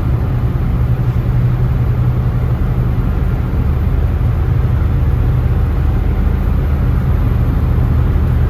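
Steady road and engine noise heard inside a moving van's cabin at highway speed, a constant low drone with a hiss of tyre and wind noise above it.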